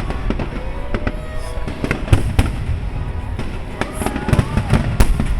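Aerial fireworks shells bursting in a rapid barrage of the display's finale: many sharp bangs in quick succession over a continuous low rumble of echoing detonations.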